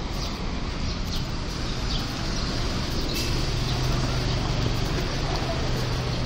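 City street traffic: a steady wash of passing cars and trucks, with a steady low engine hum from about three seconds in as a vehicle passes close by. A few short high chirps sound in the first two seconds.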